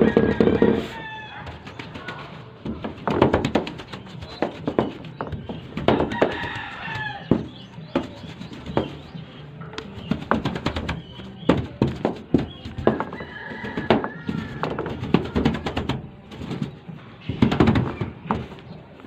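Scattered knocks and taps from paint-roller work on a corrugated metal roof. A rooster crows in the background, about six seconds in and again about thirteen seconds in.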